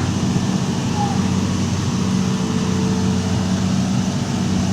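Excavator's diesel engine running steadily at constant speed, a low even hum without revving.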